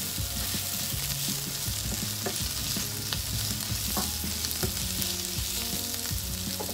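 Sliced onions and dried bitter gourd sizzling in oil in a frying pan while a wooden slotted spatula stirs them, with scattered light scrapes and taps of the spatula against the pan.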